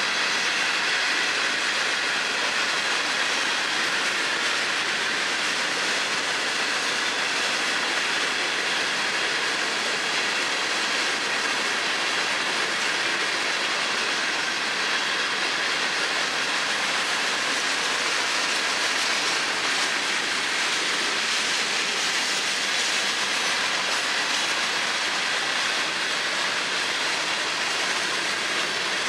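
Florida East Coast Railway freight train's hopper cars rolling past: a steady, loud hiss of steel wheels on rail, with a few faint high tones over it.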